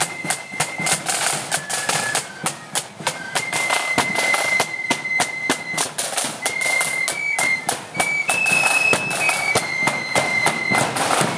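Marching flute band playing: a shrill flute melody moving in steps over a steady beat of side drums and bass drum.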